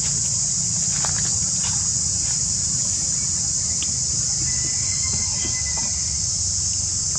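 Steady, high-pitched insect chorus droning without a break, over a low steady rumble, with a few faint clicks about a second in.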